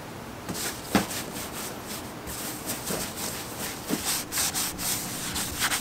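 Paper towel wiping the roof of a Land Cruiser with parts cleaner, rubbing back and forth over the painted metal in uneven strokes that grow stronger in the second half. A few light knocks come about a second, three seconds and four seconds in.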